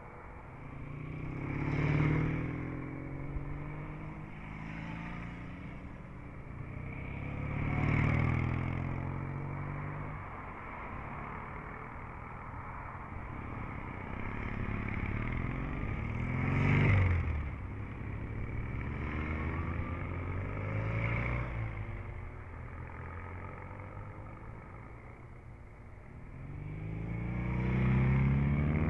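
Vintage and classic rally motorcycles, mixed with cars, driving past one after another, about five passes. Each engine grows louder up to the pass and then drops in pitch as it goes away.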